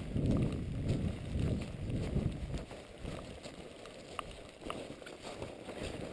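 Footsteps scrambling up a slope through dry leaf litter. A low rumble of rubbing on the microphone fills the first couple of seconds, then scattered crackles and snaps of leaves and twigs underfoot.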